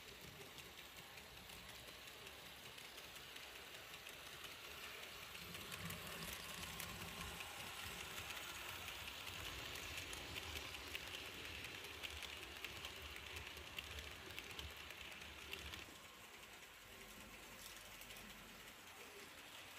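Märklin H0 model of the Swiss Ae 6/6 electric locomotive running with its coaches on the layout track, a steady fine clicking rattle of model wheels on rails. It grows louder as the train passes close, then quieter after about sixteen seconds.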